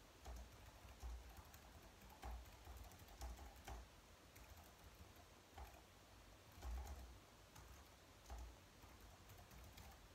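Faint typing on a slim white low-profile keyboard: irregular runs of light key clicks with short pauses between them.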